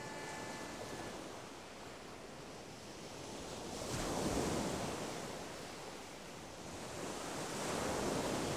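Ocean waves washing in as a soft rushing surf, swelling twice, with a gap of about four seconds between the swells.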